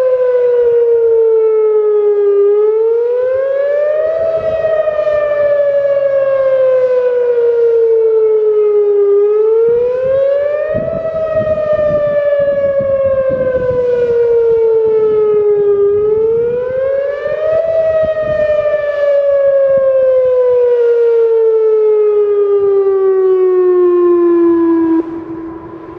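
Whelen WPS-2809 electronic outdoor warning siren sounding its wail tone for a monthly test. The pitch rises for about two seconds, then falls slowly for about five, over and over, and the tone stops abruptly about a second before the end.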